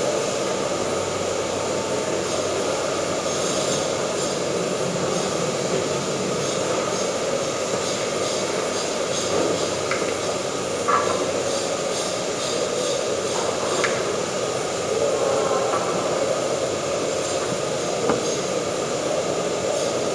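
Steady rushing machine noise, with a few short squeaks and clicks about halfway through and again near the end.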